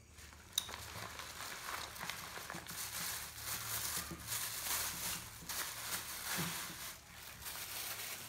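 Paper wrapping and a plastic bag being handled and unwrapped, an irregular crinkling and rustling, with one sharp tap about half a second in.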